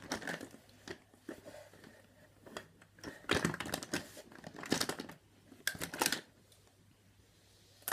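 Rustling and handling noises in short bursts as makeup items are rummaged through and picked up.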